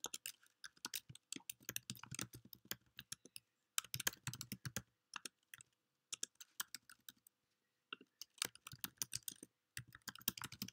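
Typing on a computer keyboard: quick runs of key clicks broken by short pauses, the longest about halfway through.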